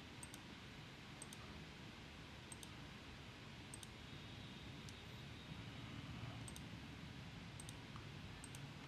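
Faint computer mouse clicks, about eight spread irregularly over the stretch, some as quick double clicks, over a quiet steady room hum.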